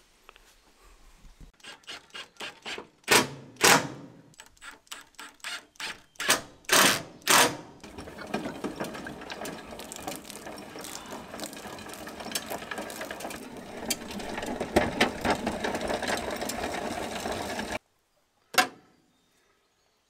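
Wall-mounted garden hose reel being turned as the hose is wound onto it: a steady mechanical clicking and rattling for about ten seconds, after several irregular knocks from handling the hose and reel. It cuts off suddenly near the end, and one more click follows.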